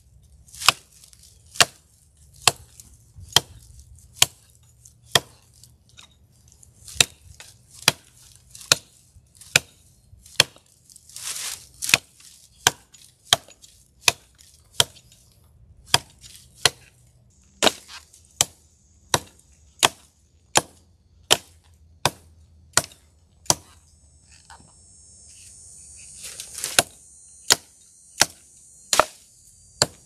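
Hatchet chopping into a downed log: sharp, even strikes a little more than one a second, about thirty-five in all, with a couple of brief pauses.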